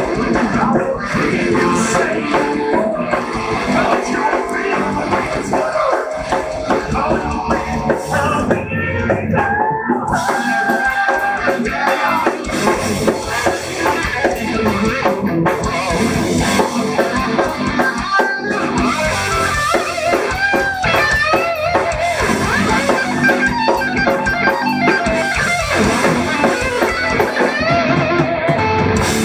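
Live rock band playing amplified electric guitar, bass guitar and drum kit.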